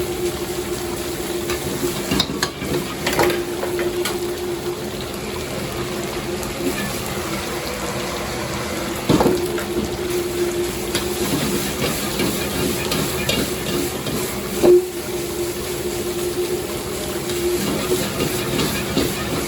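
Stir-frying in a wok: food sizzling and being stirred over a steady hum, with a few sharp knocks spread through.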